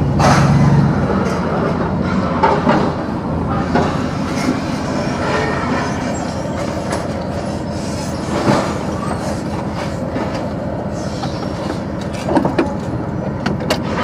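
Steady road and running noise from inside a moving vehicle, with scattered rattles and knocks.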